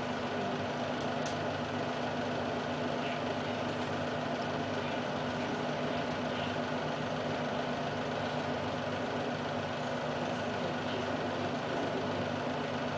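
A steady low mechanical hum that holds the same pitch and level.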